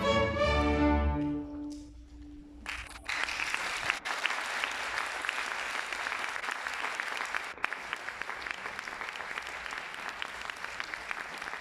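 A baroque string orchestra of violins and cellos plays its closing chord, which dies away within about two seconds, one low note hanging on a moment longer. An audience then breaks into steady applause, which cuts off suddenly near the end.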